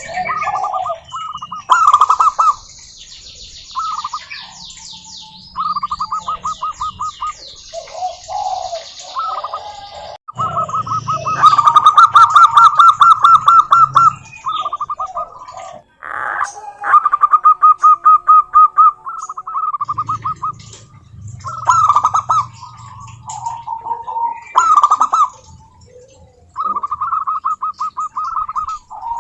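Zebra doves (perkutut) singing: repeated phrases of rapid staccato cooing notes, one after another, with higher chirps and trills over them.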